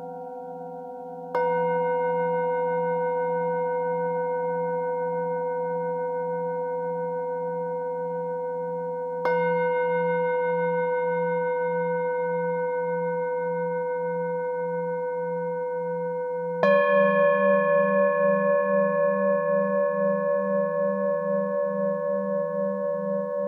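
Metal singing bowls struck with a mallet: three strikes, roughly seven to eight seconds apart, each ringing on in several steady tones that slowly fade, with a slow wobble in the low hum. The third strike, about two-thirds of the way in, is the loudest and brings in a different set of pitches.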